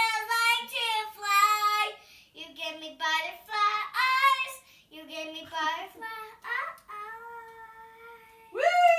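A young girl singing with no backing music: a run of held notes with short breaks between them. Near the end one loud note swoops up and slides down again.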